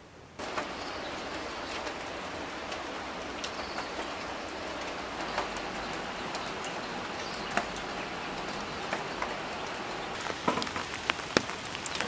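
Steady rain falling outdoors, an even hiss with scattered drops ticking close by, and a few sharper ticks near the end.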